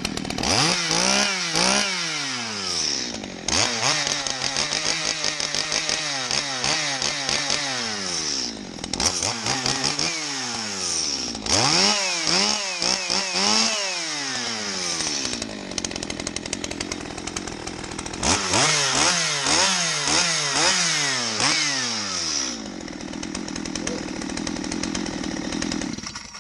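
Stihl MS211 35cc two-stroke chainsaw engine being revved again and again, blipped up and down and held at high revs for a few seconds at a time, then settling to idle and stopping at the end. It runs cleanly on fresh fuel, which seemed to be all this spares-or-repair saw needed.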